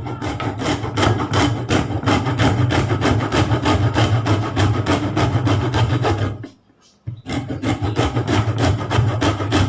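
A lemon rubbed quickly back and forth on a fine grater, its peel grated into zest: rapid rasping strokes, several a second, with a short pause about two-thirds of the way through before the grating resumes.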